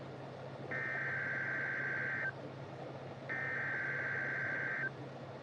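Emergency Alert System SAME header data bursts on NOAA Weather Radio: harsh, buzzy two-tone digital bursts, two of them here, each about one and a half seconds long and a second apart, over steady radio hiss and hum. These coded bursts open a new alert, here a Severe Thunderstorm Watch.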